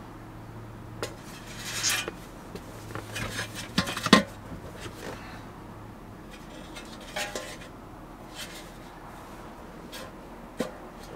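Hands rummaging through a vehicle's center console full of loose junk: irregular clinks, rattles and rustles of small hard objects such as loose bolts, loudest about four seconds in.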